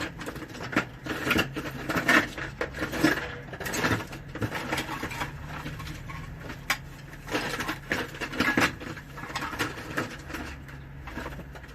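Irregular clicks, knocks and light clatter of a small transformer, wire and hand tools being handled on a workbench, over a faint steady low hum.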